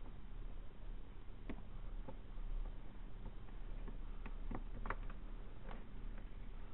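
Light, scattered clicks and taps from a black and white tegu's claws and mouth on a hard tray and its plastic food bowl, clustered in the second half, over a steady low hum.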